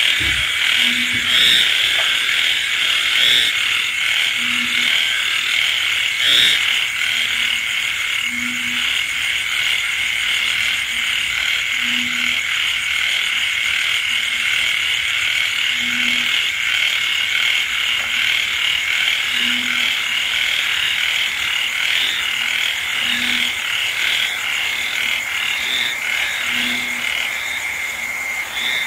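Dense night chorus of frogs and insects in rain: a steady, high, shrill trilling, with a low, short frog call repeating every three to four seconds, alternating louder and fainter, as from banded bullfrogs (ểnh ương) answering each other.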